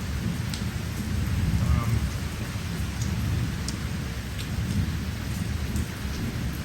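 Heavy hurricane rain falling, with a steady low rumble underneath and a few scattered sharp drop ticks.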